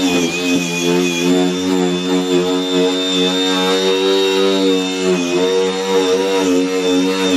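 Brushless cordless angle grinder running at speed with a steady whine, its pitch dipping briefly just after the start and again about five seconds in, as when the disc bites into work.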